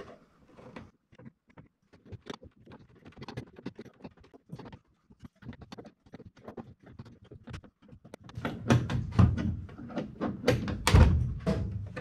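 Greenlee knockout punch being tightened through the sheet-metal side of a furnace cabinet: a run of light, irregular metallic clicks, then heavier clunks and knocks in the last few seconds as the cutter is drawn through the metal.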